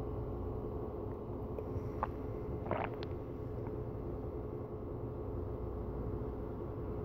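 Quiet steady low hum of room tone, with a few faint short scratchy strokes about two to three seconds in from a paintbrush dabbing acrylic paint onto canvas.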